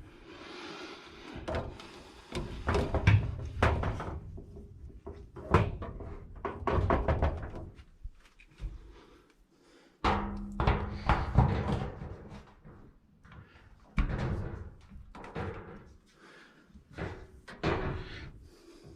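Irregular knocks, thumps and rattles of things being handled and set down, with sharper strikes about ten and fourteen seconds in.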